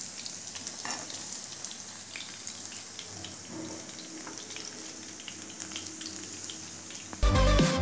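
Oil sizzling and crackling steadily around spice-coated chicken pieces frying in a pan, as the chicken is turned and lifted out. Near the end, loud music with a beat suddenly comes in over it.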